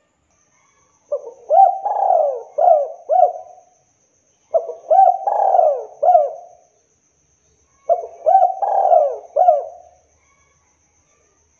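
Spotted dove cooing: three phrases of four or five coo notes each, repeated about every three and a half seconds.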